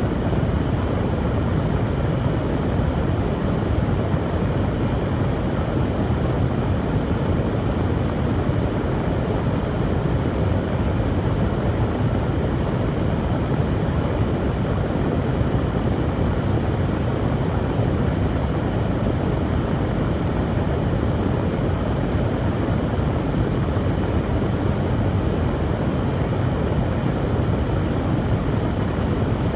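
Hair dryer running steadily: an even airflow rush with a low motor hum beneath.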